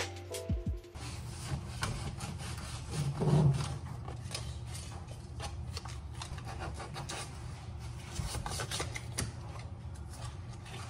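Scratchy rubbing and scraping on wood, a dense run of short strokes over a low steady hum.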